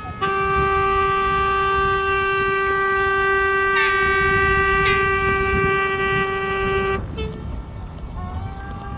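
Ship's horn sounding one long, steady blast of about seven seconds that stops abruptly, a memorial signal for those lost at sea. Fainter, more distant horns carry on after it, some sliding in pitch.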